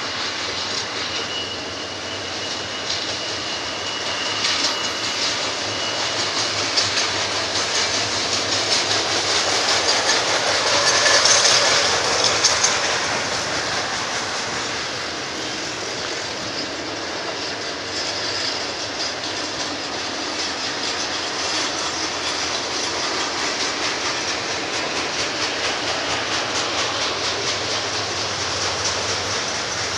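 Freight cars of a BNSF intermodal train rolling past, steel wheels clicking steadily over the rail joints, loudest about eleven seconds in. A faint high wheel squeal is held for a few seconds near the start.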